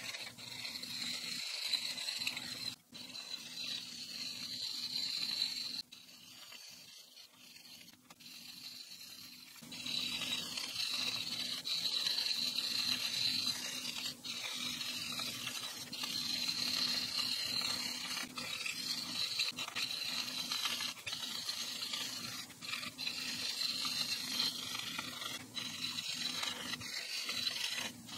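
Marker tip rubbing and scratching across paper in quick back-and-forth colouring strokes, a steady scratchy hiss that goes quieter for a few seconds about a quarter of the way in.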